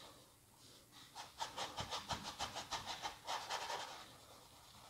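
Small paintbrush scrubbing oil paint onto a stretched canvas in quick short strokes, about four or five a second, starting about a second in and stopping near four seconds; faint.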